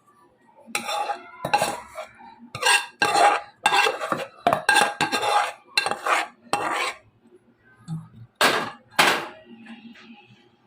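A metal spoon scraping and clinking against a cooking pan in a run of short strokes, then two more near the end, as cooked minced chicken is scooped out for the mixer.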